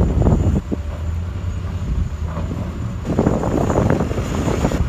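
Heavy diesel engines of a loaded dump truck and an excavator running, with a low rumble that grows louder about three seconds in.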